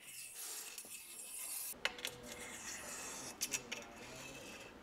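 A nut sliding and scraping along the slot of a rooftop-tent crossbar rail, with a few small clicks as it is worked into place.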